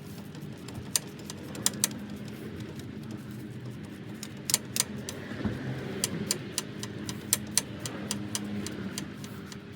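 Sharp metallic clicks and clinks of hand tools coming at irregular intervals, over a steady low hum, as the wheel hub's rusty mounting bolts are worked out.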